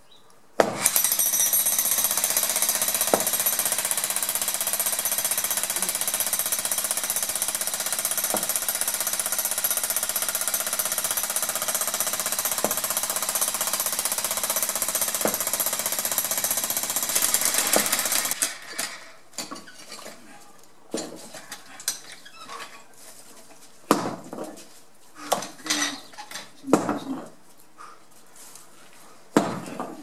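Pneumatic jackhammer running continuously, breaking up stone, for about 17 seconds before it stops. After that come scattered knocks and clinks of stone and tools.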